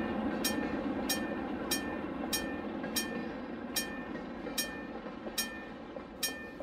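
HO scale model freight train rolling past with a steady rumble, plus sharp clicks with a short ring a little under one a second, spacing out slightly.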